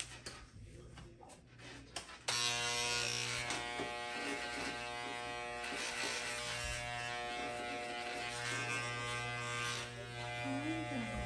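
Corded electric hair clipper switched on about two seconds in, then buzzing steadily as it shaves a boy's head short. A few light clicks of handling come before it starts.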